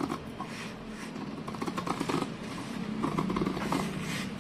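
Scissors cutting through folded paper in a run of short snips, the blades crunching and the paper rustling, over a faint steady hum.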